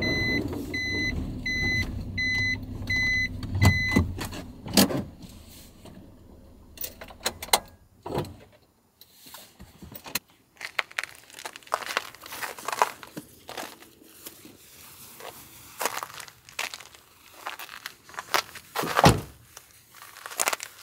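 A light truck's engine running while a warning beep repeats about twice a second. The beeping stops about four seconds in and the engine rumble dies away soon after. Then come scattered clicks, knocks and crunching handling noises.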